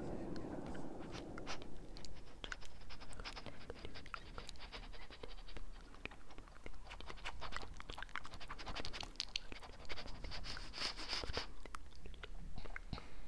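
A close-miked run of small, irregular clicks and crackles, with two short stretches of hissy rustle, about three seconds in and again about ten seconds in.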